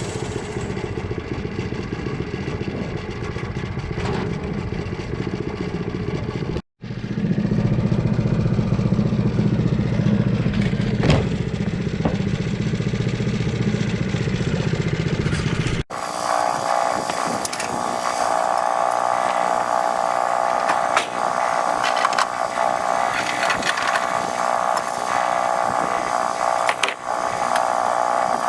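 Engine running steadily, louder and deeper after a cut about seven seconds in. After another abrupt cut at about sixteen seconds it gives way to a higher-pitched steady mechanical whine with no low rumble.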